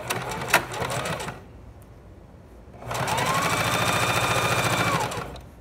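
Electric sewing machine stitching through two layers of fabric in two runs: a short run in the first second and a half, then after a pause a longer run of about two seconds, its motor pitch rising as it speeds up and dropping as it stops. A sharp click about half a second in.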